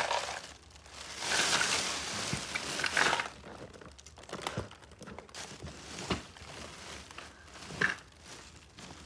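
Rustling and handling noise, loudest for about two seconds near the start, then quieter with a few scattered clicks and taps.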